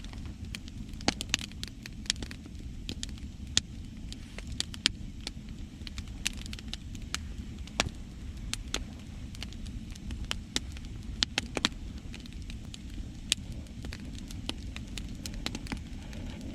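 Wood fire crackling, with irregular sharp pops several times a second, over a steady low rumble of sea waves.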